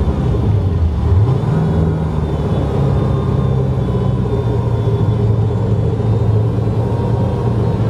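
Inboard engine of a 2001 Moomba Outback ski boat running warm at around 2,000 to 2,500 rpm; the revs dip and pick back up about a second in, then hold steady and smooth.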